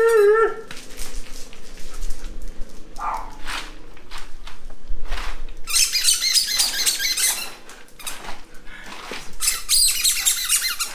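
Alaskan malamute's howl ending about half a second in, followed by ice cubes clattering, crunching and squeaking in an ice-filled paddling pool as a malamute paws and steps into it, loudest about six seconds in and again near the end.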